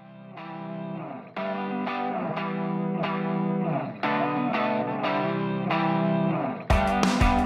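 Outro music: sustained, distorted electric guitar chords fading in and changing every second or two, with drums coming in near the end.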